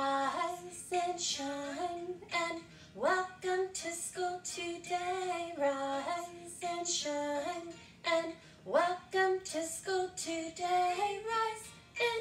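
A woman singing a children's good-morning song over music, with quick upward pitch swoops about three seconds in and again near nine seconds.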